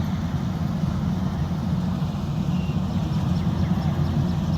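Combine harvester's diesel engine and threshing machinery running steadily at constant speed, a continuous low drone.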